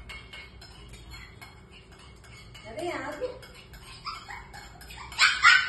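Shih Tzu puppies yipping and whining for food, with one drawn-out whine about three seconds in and the loudest, sharpest yips near the end, over a run of light clinks and clicks like dishes.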